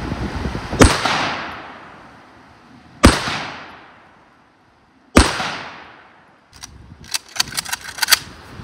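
Three rifle shots from a Saiga semi-automatic rifle, about two seconds apart, each followed by a long echo that fades over a second or more. The rifle is being test-fired to check a newly fitted collimator sight at long range. Near the end comes a quick run of sharp clicks and knocks.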